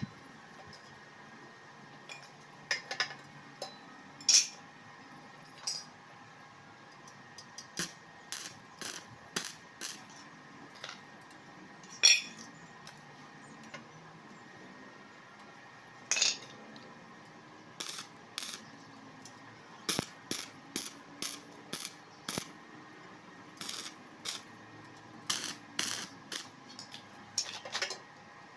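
Metal pieces and hand tools clinking and tapping against a square-tube steel frame as a bracket plate is fitted and marked out: irregular sharp clinks, with a few louder knocks.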